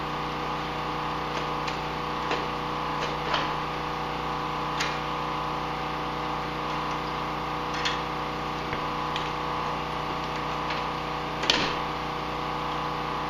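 Scattered light clicks and knocks of parts and tools being handled in a snowmobile's engine bay, about ten in all, the loudest near the end, over a steady hum.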